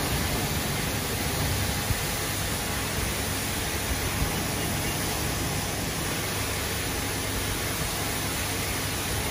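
High-pressure washer jet spraying water onto the concrete track bed, a steady hiss.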